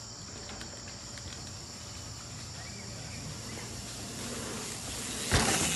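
Steady high-pitched drone of insects in tropical forest. About five seconds in, a louder rushing noise sets in suddenly as a mountain bike comes down the dirt trail.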